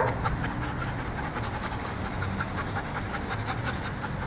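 A dog panting, over a low steady hum.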